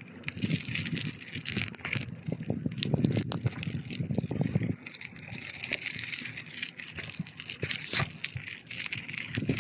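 Bicycle being ridden: many scattered clicks and rattles from the bike over an uneven low rumble.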